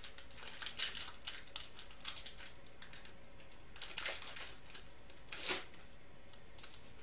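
A thick foil trading-card pack wrapper being torn open and crinkled by hand, in irregular crackly rustles with a few louder rips. The pack is tough and brutal to open.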